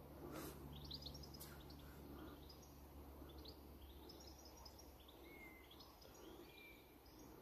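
Faint birdsong: small birds giving short, high chirps again and again, with a couple of short whistled notes in the second half. A faint low hum fades out about halfway through.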